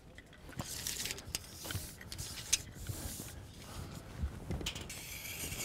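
Scattered clicks, knocks and scrapes of a tape measure being pulled out and worked across a shingled roof, with a longer hissing scrape about five seconds in.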